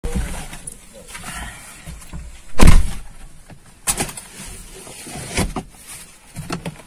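A series of sudden knocks and thumps over a low rumble, the loudest a little under three seconds in.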